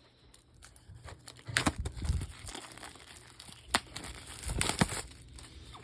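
Packaging crinkling and rustling as board-game components are taken out of their box, in a few short bouts with light clicks and knocks between quiet gaps.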